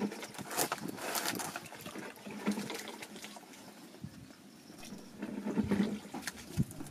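Water splashing and dripping as wet tomatoes are handled and peeled over an aluminium bowl of water, in irregular short splashes and crackles.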